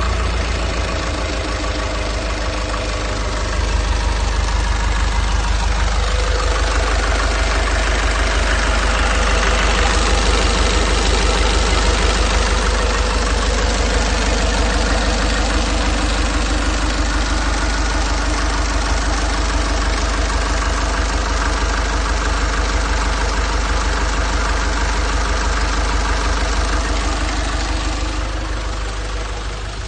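Nissan Urvan's ZD30 four-cylinder diesel engine idling steadily just after being started, with a fast, even diesel clatter.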